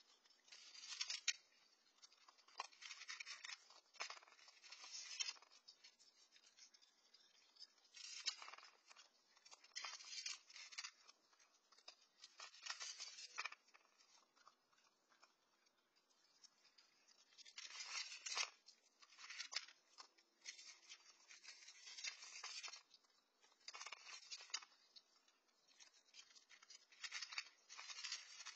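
Raccoons eating dry cat kibble from a metal bowl: faint, irregular bouts of crisp crunching and clicking as they chew and paw through the pellets.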